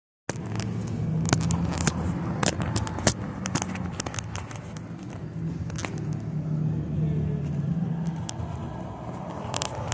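Handling noise from a phone being moved around: scattered sharp clicks and rubbing over a steady low hum. No notes are played on the guitar.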